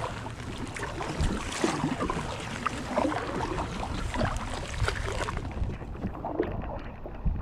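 Kayak paddle strokes dipping and splashing in the water, with irregular drips and splashes, and wind buffeting the microphone as a low rumble.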